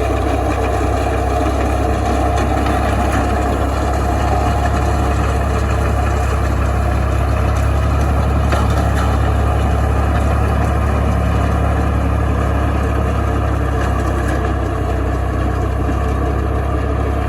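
Tractor engine running steadily at close range, a loud, even, deep drone with no change in speed.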